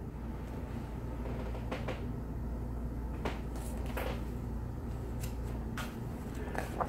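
Paper pages of a picture book being turned and handled: several short rustles and soft clicks over a steady low hum.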